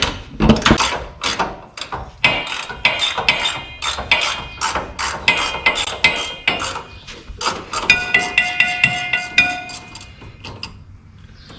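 Ratchet spanner clicking rapidly on a tight, Loctited fuel-tank bolt, with a metallic ringing that comes and goes as the bolt is worked loose. The clicking dies away near the end.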